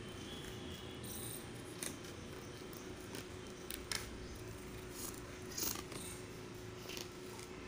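A tape-wrapped cardboard shipping box being cut open with a small blade: scattered scrapes, rustles and short tearing sounds as the tape and flaps are cut and pulled back, over a faint steady hum.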